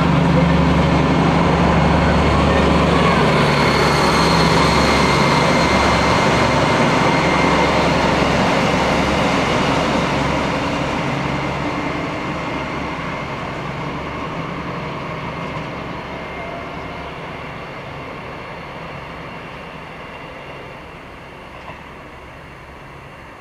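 Diesel train running with a steady engine hum and a faint high whine, loud at first and then fading steadily over the second half as it moves away.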